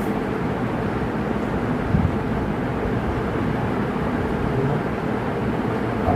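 A steady low mechanical drone, with a brief soft thump about two seconds in.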